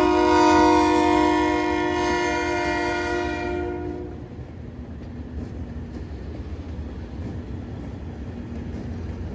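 Locomotive air horn sounding a steady chord of several tones, which stops about four seconds in; the low rumble of the passing train carries on.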